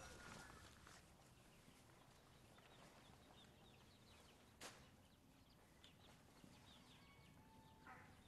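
Near silence, with faint scattered chirps from poultry in the pens. A single sharp click comes a little past halfway, and a short bird call comes near the end.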